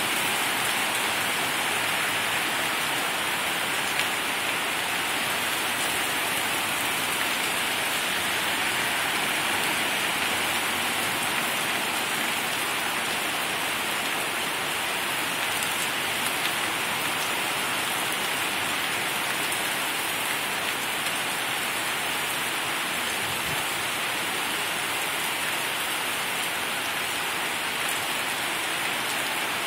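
Heavy rain pouring steadily, splashing on a flooded street.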